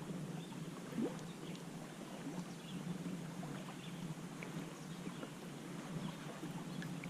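Faint sounds of a canoe on the water: small clicks and light knocks, one slightly louder about a second in, over a steady low hum.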